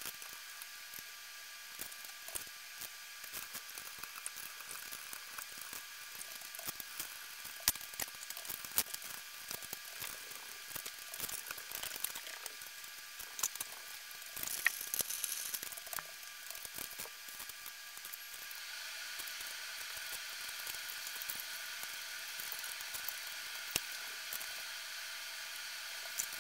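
Faint, irregular clicks, taps and rattles of ceiling-fan hardware and tools being handled as a fan is taken down and another hung. A light hiss runs underneath and grows a little louder about two-thirds of the way through.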